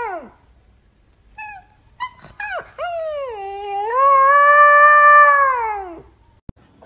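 Cat yowling: a few short cries, then one long wail that swoops down and climbs back up, loudest in its second half and stopping about a second before the end.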